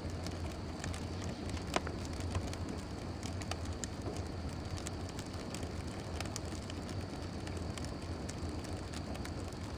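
Fire crackling: scattered sharp pops and snaps over a steady rushing hiss, with one louder pop about two seconds in.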